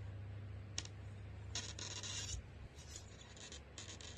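Rubbing and scraping handling noises, with a light click about a second in and a longer scrape about a second and a half in, followed by shorter, fainter scrapes.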